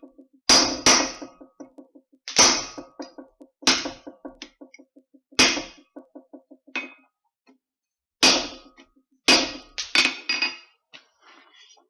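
Blacksmith's hammer striking steel on an anvil. About nine hard blows come at irregular spacing, with runs of light, quick ringing taps on the anvil between them.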